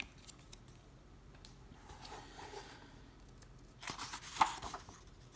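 Paper pages of a hardcover book being turned by hand: faint rustling of handling, then a short papery swish and flap of a page about four seconds in.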